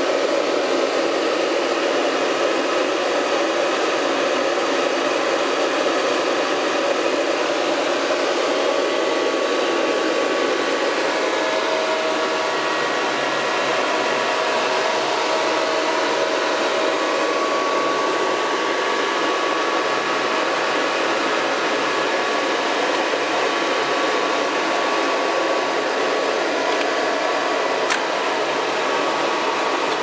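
Cooling fans of a water-cooled PC in a Compaq server case running loud: a steady rush of air with faint whining tones on top that grow a little stronger partway through.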